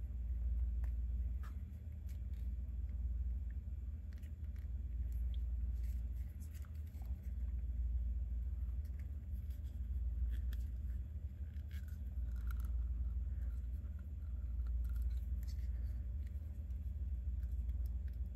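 Scattered faint clicks and scrapes of small resin-printed plastic parts being handled and pressed together as a mask piece is fitted onto a figure, over a steady low hum.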